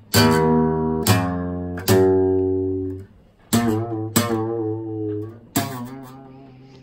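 Acoustic guitar strummed: six chords, each struck and left to ring and fade, with a short pause about halfway through.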